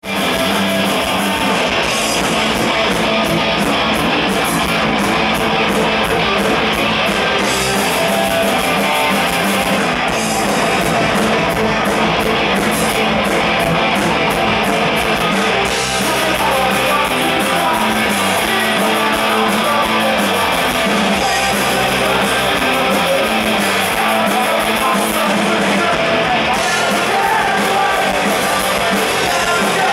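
Live punk rock band playing: electric guitars and a full drum kit with steady cymbal strikes, with a singer's vocal over them.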